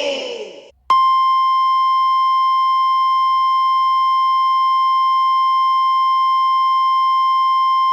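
The preceding noise fades out within the first second, then a steady, unwavering high-pitched tone starts and holds at constant loudness. It is a radio station's off-air tone, marking the station going off the air.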